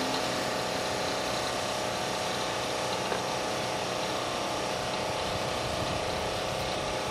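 DLE 50cc two-stroke gas engine and 22x8 propeller of a 27% Extra 330S RC aerobatic plane in flight, droning steadily at a constant throttle.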